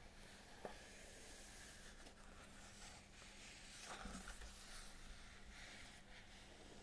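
Near silence over a faint steady hum: the faint sound of fingers on the paper pages of an open hardback book, with a soft tick about half a second in and a brief brushing sound about four seconds in as the hands shift on the pages.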